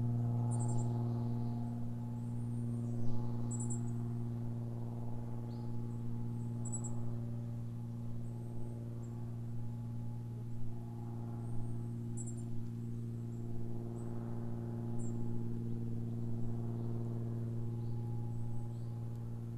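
Distant small propeller aircraft droning steadily overhead, a low even hum. Birds give short high chirps every second or two over it.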